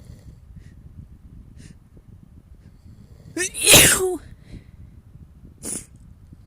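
A person sneezing once, loudly, about three and a half seconds in, after faint quick sniffing breaths of the buildup. A short sharp sniff follows near the end.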